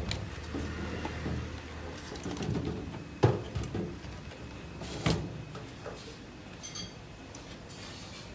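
Olivetti Lettera 32 portable typewriter being handled: three sharp mechanical clacks, at the start, about three seconds in and about five seconds in, with sliding and rattling of its parts between them.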